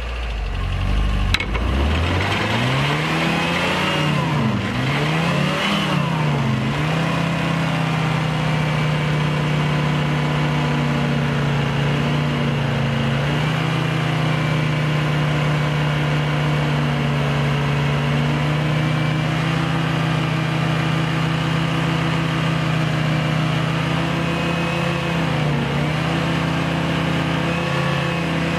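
Car engine revved up and down a few times, then held steady at high revs in gear, spinning the bare front brake disc of the jacked-up car, with a brief drop in revs and recovery near the end.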